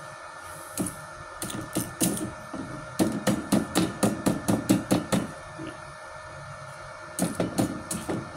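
A quick run of sharp knocks in bursts, about five or six a second, busiest in the middle of the stretch with a shorter burst near the end, over a steady faint high hum.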